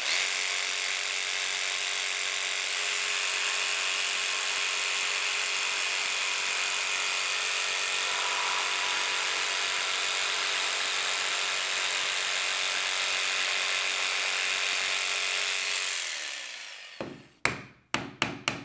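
Jigsaw cutting a quarter inch off the bottom of a wooden door jamb, running steadily, then winding down about sixteen seconds in. A few sharp knocks follow near the end.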